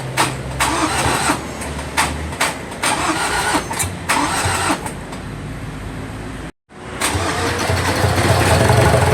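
Ford Ranger diesel engine turning over and running, with a string of sharp clicks and knocks over its steady low note. After a brief break, a steadier engine sound builds and grows louder near the end.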